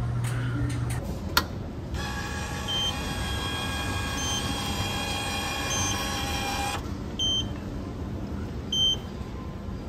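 An automatic orange juice vending machine working: a steady whine made of several tones runs for about five seconds and then cuts off suddenly. Short high electronic beeps repeat about every second and a half, and there is a sharp click shortly before the whine starts.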